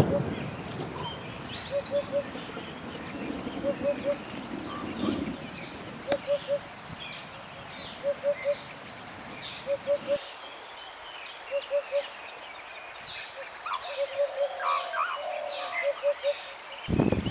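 Wild birds calling: a low three-note call, about every two seconds, over scattered higher chirps and whistles from other birds.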